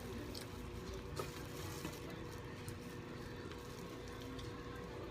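Faint eating sounds: chewing and small clicks of utensils on a plate, with one sharper click about a second in, over a steady low background hum.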